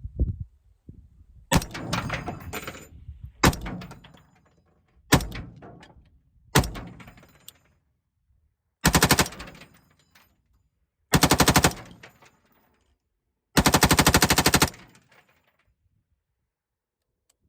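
Belt-fed AR-15 (Lima6 belt-fed upper) firing 55 grain soft point rounds: four single shots, each with a ringing echo, then three bursts of automatic fire, each longer than the one before. The belt feeds and cycles without a stoppage.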